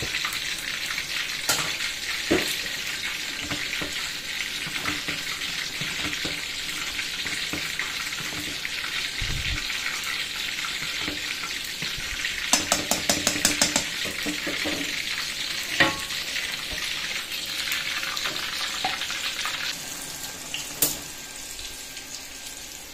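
Instant noodles boiling in a small saucepan on a gas stove: a steady hiss of the boiling pot, which drops away near the end. About halfway through, chopsticks stir the noodles with a quick run of clicks against the pan, and there are a few single knocks.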